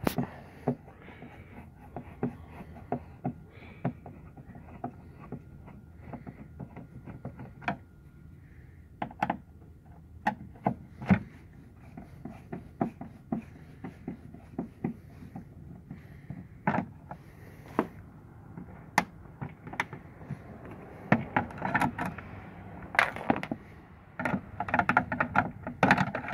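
Phillips screwdriver backing out the two screws that hold a Mazda 5's tail light: irregular small clicks, coming thicker near the end.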